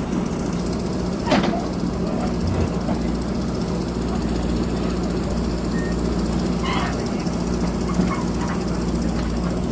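Diesel engine of a JCB backhoe loader running steadily while it works, with a sharp knock about a second in.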